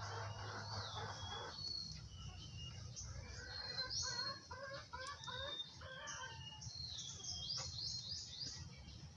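Faint birdsong: short whistled chirps and gliding notes, a cluster of quick lower calls about three to five seconds in, and a fast run of notes near the end, over a steady low hum.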